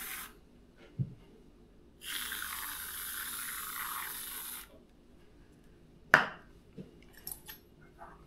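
Aerosol can of whipped cream spraying: a hiss that stops just after the start, then a second hiss of about two and a half seconds beginning about two seconds in. A sharp knock about six seconds in, followed by a few small clicks.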